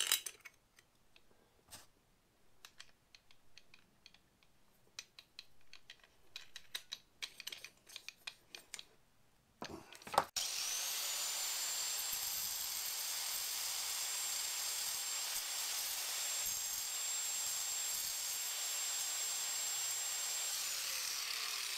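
Scattered clicks and knocks of an angle grinder being handled. About ten seconds in, a corded angle grinder runs steadily at full speed with a high whine as it grinds the end of an engineered quartz windowsill, then winds down near the end.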